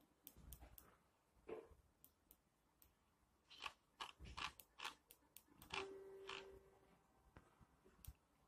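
Faint scattered clicks and taps, with one short steady beep about six seconds in.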